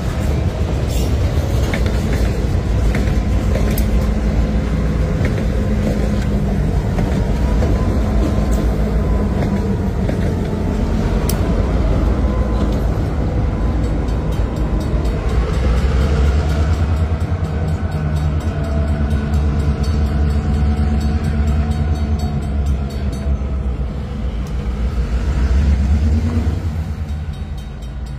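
Freight train rolling slowly over a road crossing: railcar wheels click and rumble on the rails, then two EMD GP38-type diesel locomotives at the rear pass, pushing the train, their engines droning loud and steady. The engines peak just before the end and then drop away quickly.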